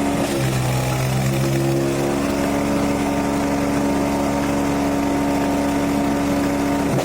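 Wood chipper's engine running loud at a steady speed, with a steady hum under the machine noise.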